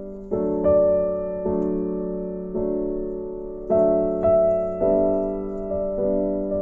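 Background piano music: slow chords struck about once a second, each left to ring and fade.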